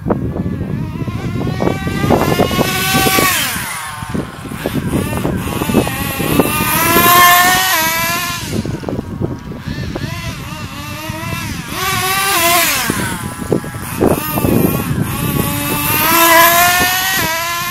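1/10-scale HPI radio-controlled car driven at full throttle, its motor's high pitch rising as it accelerates and dropping as it slows, several times over, with the rough hiss of its tyres on the asphalt.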